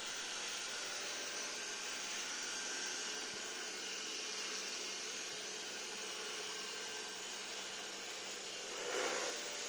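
Robot vacuum cleaner running with a steady whirring hiss, with a brief louder sound near the end.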